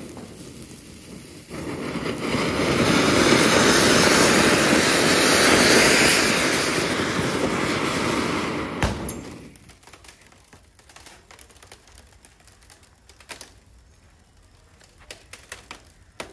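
Anar fountain firework spraying sparks with a loud, steady hiss that swells after a second or two and dies out about nine to ten seconds in. A single sharp crack comes near the end of the spray, followed by faint scattered clicks.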